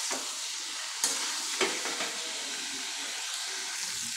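Chickpea and potato curry sizzling in a kadai as a spatula stirs it through the fried masala, with two sharp clicks of the spatula against the pan about one and one and a half seconds in.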